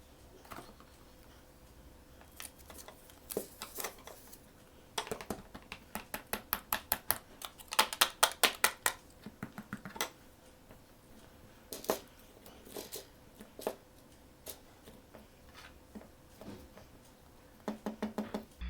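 Hands handling small objects and packaging, making scattered light clicks and taps. In the middle comes a quick run of evenly spaced clicks, several a second, which are the loudest part.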